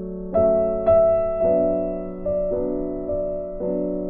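Background piano music: slow chords, each struck and left to fade.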